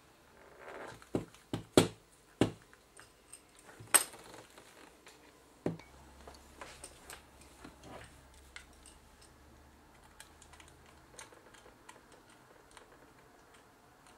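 Small clicks, taps and knocks from hands working a plastic compact camera body and a small screwdriver while its base screws are taken out, with several sharper knocks in the first six seconds and lighter ticks after.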